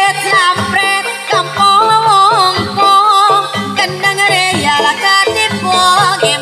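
Live Javanese gamelan music for a Reog dance: a high, wavering, ornamented melody line over repeating low beats.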